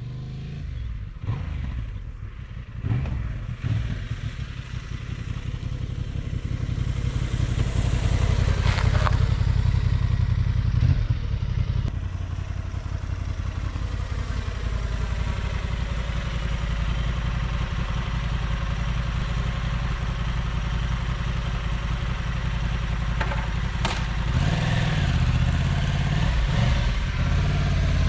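Honda Transalp motorcycle engine running steadily, growing louder over the first several seconds, with a few knocks and some clatter near the start.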